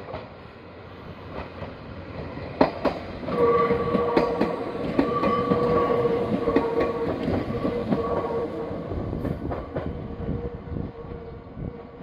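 Nankai Kada Line local electric train passing close by, its wheels clacking over the rail joints. It is loudest from about three seconds in until about eight seconds, with steady ringing tones over the passage, and fades as the last cars go by.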